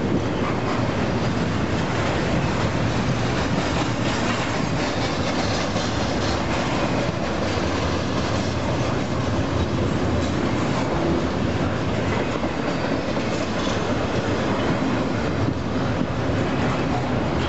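Double-stack container well cars of a freight train rolling past at close range: a steady noise of steel wheels running on the rail.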